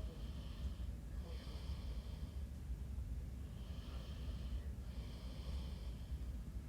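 A person breathing close to the microphone, in and out in roughly one-second puffs, over a steady low rumble.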